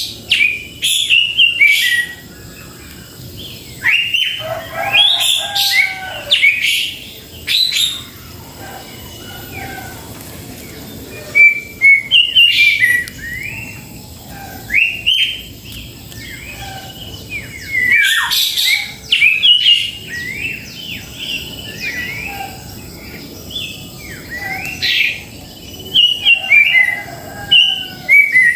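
Cucak jenggot (grey-cheeked bulbul) calling in clusters of short, sharp chirps and quick whistled notes that recur every few seconds.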